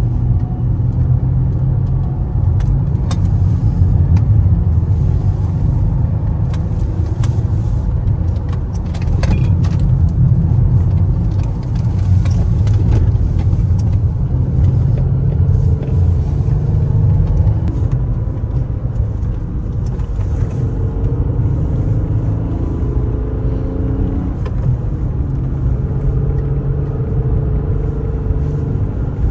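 Cabin noise of a Mercedes-Benz C-Class driving at speed: steady low engine and tyre rumble, with scattered clicks and knocks.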